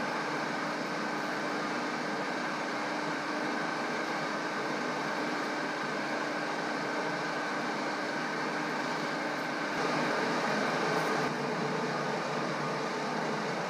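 Metal lathe running, a steady mechanical noise with a low hum and a higher whine. About ten seconds in, the steady tones drop away and the noise briefly gets louder and rougher.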